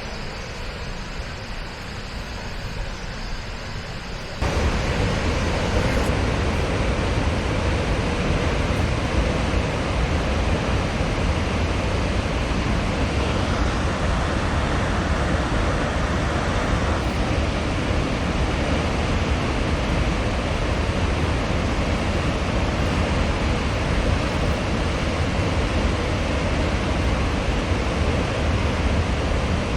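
Large waterfall rushing: a steady, even noise of falling water, heavy in the low end. It steps up sharply in loudness about four seconds in and then holds steady.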